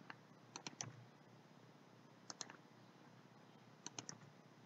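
Faint clicks of a computer mouse and keyboard being worked: three short clusters of two or three quick clicks, about a second and a half apart.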